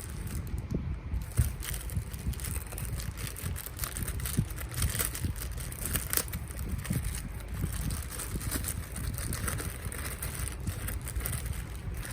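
Irregular crackling and rustling of plastic packaging being handled, over a steady low rumble of handling noise on the microphone.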